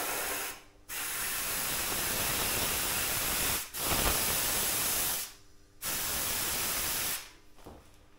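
Compressed air hissing through a compressor's air chuck into a bicycle's new inner tube, in four bursts of one to two and a half seconds with short gaps between: the tube being inflated.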